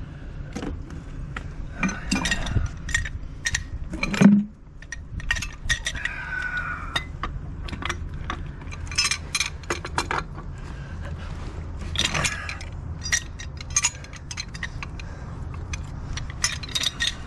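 Scattered metal clinks, taps and scrapes of hand tools, with a pipe wrench being set and worked on the fitting of a gas service riser; a heavier knock about four seconds in.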